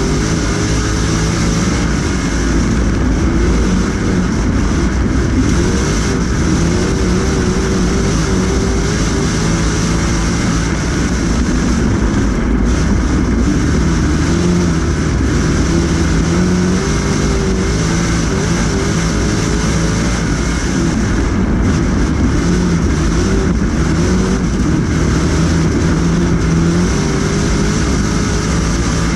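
Street stock race car's engine heard from inside the cockpit, running hard, its pitch rising and falling over and over as the car lifts off for the turns and accelerates down the straights.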